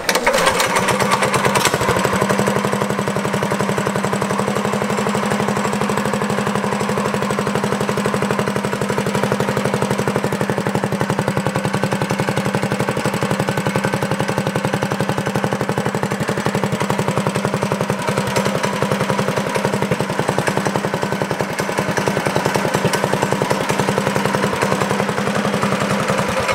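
Small single-cylinder overhead-valve go-kart engine firing up and running steadily at an even idle through an open, heat-wrapped exhaust. This is its first run after reassembly with new rocker arms and a clear valve cover.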